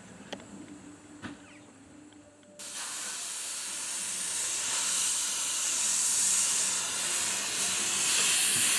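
Narrow-gauge steam locomotive venting steam: a loud, steady hiss that starts suddenly about two and a half seconds in.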